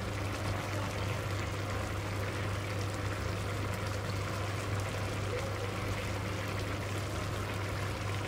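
Rice and stock boiling in a large steel pot, a steady bubbling, over a constant low hum.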